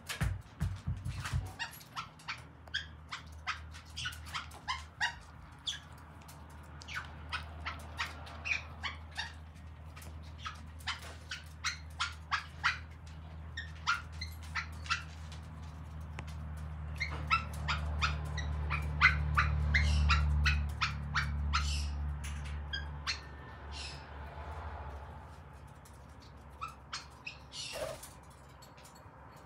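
A German Shepherd barking repeatedly and a caique parrot squawking, in quick sharp bursts that come and go, raising the alarm at something outside. Underneath runs a low rumble that swells to its loudest about two-thirds through, then fades.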